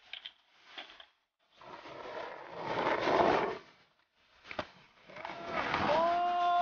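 Skateboard wheels rolling on concrete ramps: a rush that swells and fades, a sharp clack of the board about four and a half seconds in, then another rolling rush with a short held pitched sound near the end. A few light clicks of the board open the sequence.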